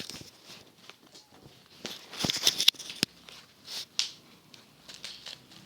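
Plastic bubble wrap being handled: crinkling and rustling, with a few sharp snaps two to three seconds in, the loudest near the middle.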